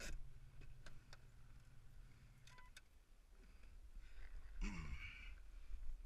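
A man's sigh near the end, over faint clicks and a low hum that stops about halfway, as he opens the door of a Jeep cab and gets out.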